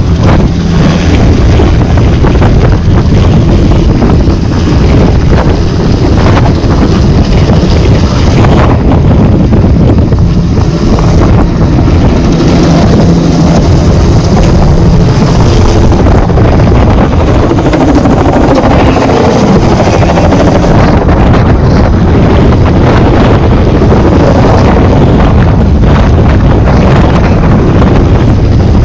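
Helicopter running loud and steady, its rotor and engine noise mixed with heavy wind buffeting on the microphone.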